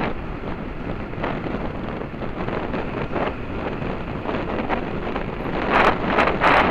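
Wind rushing over the microphone of a mountain bike's onboard camera as the bike rolls fast down a dirt fire road, with tyre rumble on the dirt beneath it. It grows louder and harsher in a few bursts near the end.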